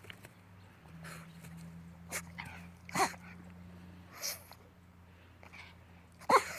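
Boston terrier sneezing several times in short sharp blasts, the strongest about three seconds in and again near the end, with a softer hissing one between. Excited play sneezes from a dog wanting her ball thrown.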